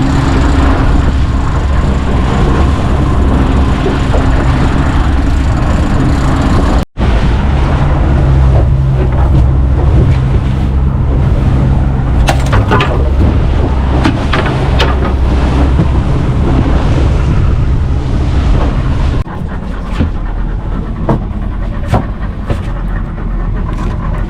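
Steady loud rumble of a boat's engine under way, mixed with wind noise on the microphone. It breaks off for an instant about seven seconds in and drops somewhat in level near the end.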